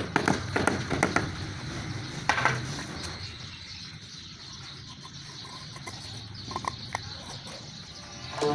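Tile-setting work: a quick run of sharp knocks and taps in the first few seconds, then quieter with a few light clicks shortly before the end.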